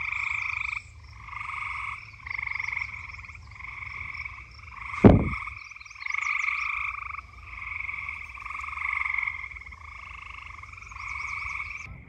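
A chorus of frogs calling: pulsed trills about a second long, one after another and overlapping. About five seconds in there is a single loud thump.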